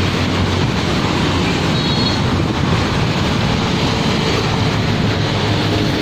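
Steady rush of street traffic noise, even and unbroken, with no single event standing out.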